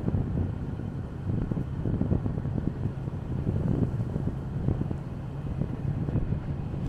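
Wind buffeting the microphone outdoors: a gusty low rumble that surges and eases irregularly.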